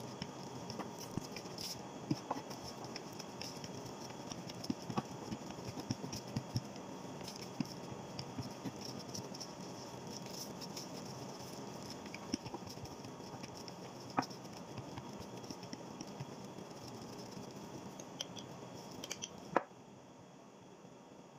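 Scattered light taps, knocks and scrapes of a wooden rolling pin and gloved hands working floured dough on a glass counter, over a steady background hum. About a second before the end the hum cuts off abruptly after a sharp click.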